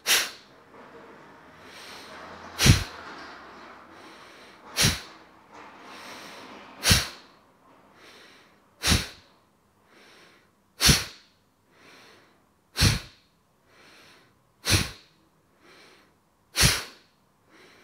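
Bhastrika (bellows) breathing: a man breathes forcefully in and out through his nose, one breath about every two seconds. Nine short, sharp nasal blasts with softer breaths between them.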